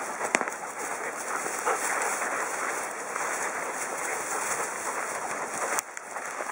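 Rustling and crackling of dense forest undergrowth (blueberry and heather brush) as a black Labrador and the person filming push through it, with a couple of sharp twig-like snaps.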